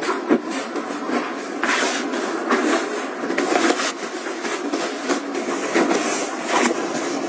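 Close-miked rustling and swishing of clothes being folded and pressed into a fabric packing cube, with many quick brushes and soft pats of hands on the cloth.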